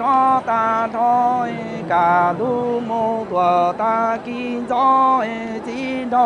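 Hmong kwv txhiaj folk song chanted by a single voice: a string of held notes on a few pitches, each sliding into the next, broken by short pauses.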